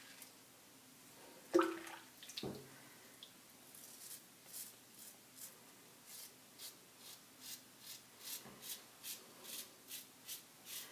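A double-edge safety razor with a Schick Krona blade scraping stubble in short, quick strokes, about two a second, during the final against-the-grain pass up the neck. A brief clunk with a short ringing tone comes about a second and a half in.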